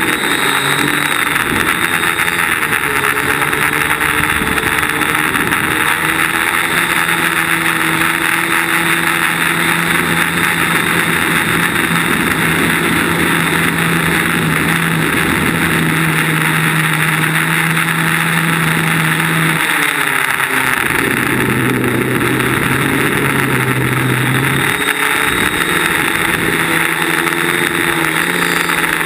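DJI Flame Wheel quadcopter's electric motors and propellers buzzing steadily, heard close up from on board with a rushing of air. The motor pitch drops about twenty seconds in and rises again about five seconds later as the throttle changes.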